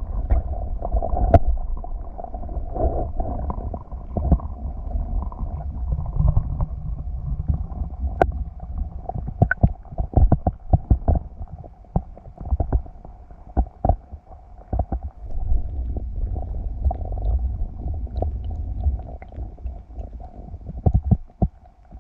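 Muffled low rumble of water moving around a submerged camera housing, with many irregular clicks and knocks, most frequent in the middle.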